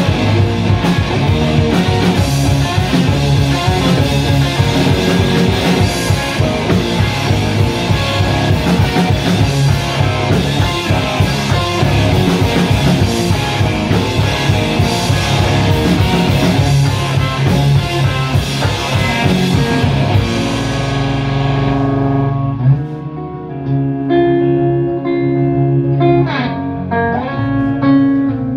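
Live rock band playing an instrumental passage on electric guitar and drum kit. About twenty seconds in the drums drop out and the electric guitar carries on alone with held, ringing notes.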